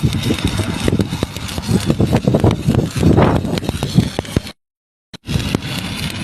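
Stick (shielded metal arc) welding arc on a cap pass, a dense irregular crackle of short pops over a low rumble. It breaks off to dead silence for under a second a little after four seconds in, then resumes.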